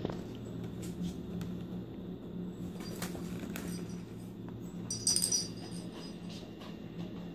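A jingle bell inside a cat's ball toy jingling briefly about five seconds in as kittens bat at it, with a few light taps and clicks before it, over a steady low hum.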